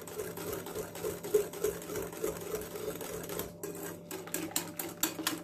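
Wire hand whisk beating egg, sugar and milk batter in a glass bowl: fast, even clicking as the whisk strikes the glass, sharper near the end.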